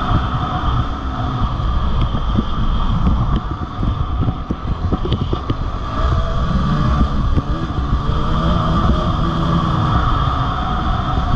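Dirt bike engine running as it is ridden along a gravel road, with wind noise on the microphone. The engine note drops back from about two seconds in, then picks up and climbs again past the middle.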